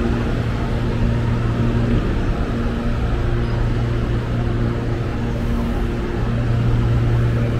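Steady electric hum of a stationary CPTM electric multiple-unit train with its onboard equipment running, a low drone with a fainter higher tone that comes and goes.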